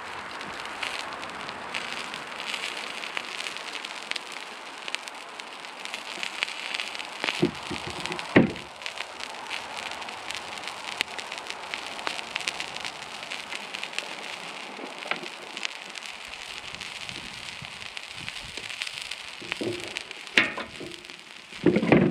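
Sausages and chopped vegetables sizzling on a hot flat-top griddle: a steady hiss with fine crackles. A couple of knocks come about eight seconds in, and more near the end.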